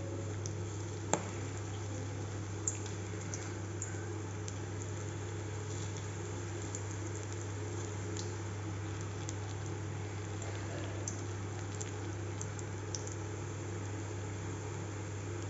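Spinach pakoras deep-frying in hot oil in a wok: a faint sizzle with scattered small crackles and pops as batter is dropped in by hand, the sharpest pop about a second in. A steady low hum sits underneath.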